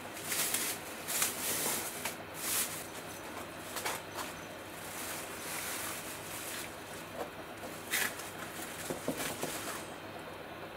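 Thin plastic bag, wet with vinegar, crinkling and rustling in irregular bursts as it is peeled open by hand from around a soaked saw blade.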